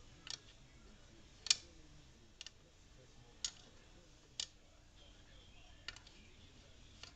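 A series of short, sharp clicks and light taps at uneven intervals, about seven in all, the loudest about a second and a half in.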